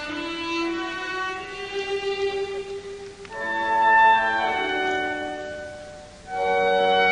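Figure skating program music: classical music carried by bowed strings, with the strings swelling louder about three seconds in and again near the end.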